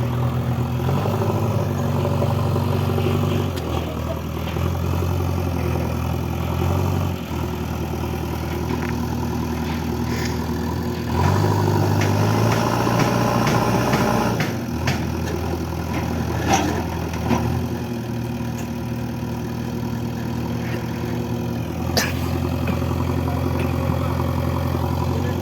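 Diesel engine of heavy earthmoving machinery running, its pitch shifting as the load changes and getting louder for about three seconds midway. A few sharp knocks cut in over it, the loudest near the end.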